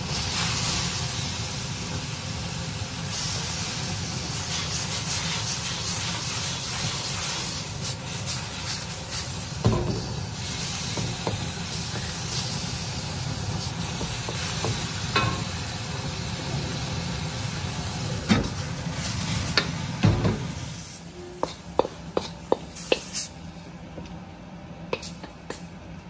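Prawns sizzling in a hot wok as they are stir-fried, with a wooden spatula now and then knocking and scraping against the wok. About twenty seconds in, the sizzling stops and a quieter run of sharp clicks and taps follows.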